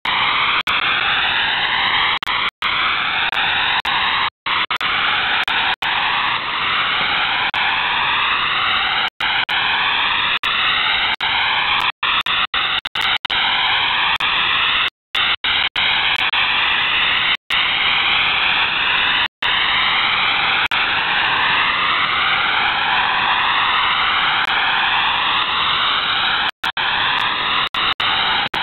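Shortwave radio receiver audio tuned to the Russian 'D' marker frequency: a loud, steady hiss with several slow rising tones sweeping through it over and over, cut by brief dropouts to silence. Whether it is transmitter noise or a STANAG data signal is left open.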